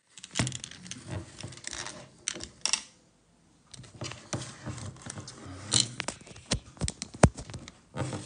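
Irregular clicks, taps and knocks of objects being handled at close range, with a gap of near silence about three seconds in.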